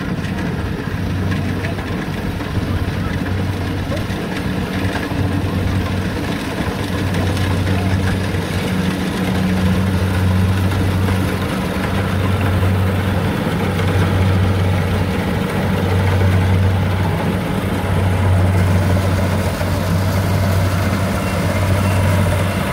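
Rice combine harvester's engine running steadily under load, a low hum that swells and eases every second or two over a broad mechanical clatter.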